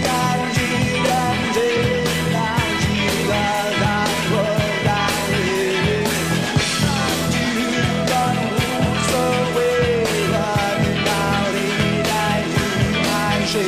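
Rock music: a man singing over a band with steady drum beats.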